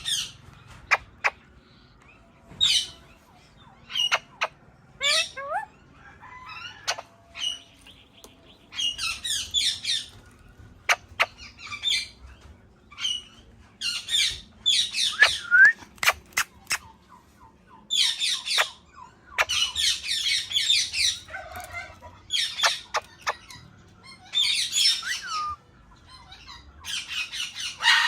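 Pet green parrot squawking: a series of harsh, high screeching calls, each lasting up to a second or so, with short sharp clicks and chirps in between.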